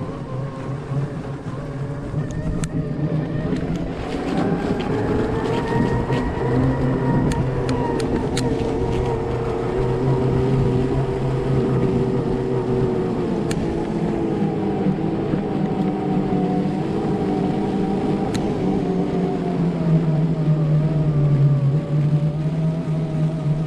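Electric drive motor of an Omeo self-balancing off-road wheelchair whining steadily as it rides, its pitch rising about four seconds in and sinking again as the speed changes. A few sharp clicks sound over it.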